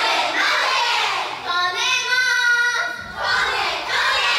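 High-school girls singing in high, bright voices, with one long held note between about one and a half and three seconds in.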